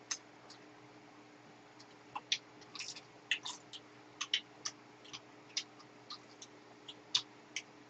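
Close-miked chewing and mouth sounds of people eating: irregular wet clicks and smacks, about two or three a second.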